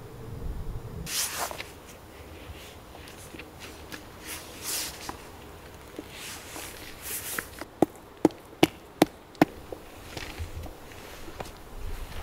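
Soft nylon rustling of a down jacket and tent fabric as a person moves, then five sharp knocks in quick succession about eight seconds in.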